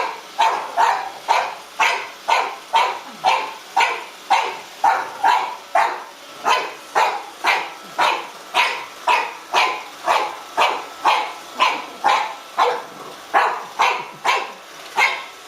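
Four-month-old French bulldog puppy barking over and over in a steady rhythm, about two barks a second.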